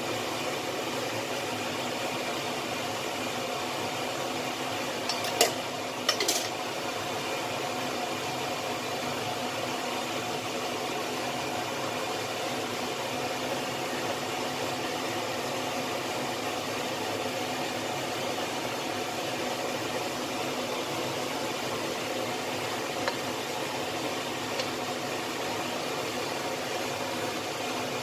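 Steady hiss with a faint hum as sugar melts in hot oil in a wok for caramel colour. A bamboo spatula taps the wok twice, about five and six seconds in.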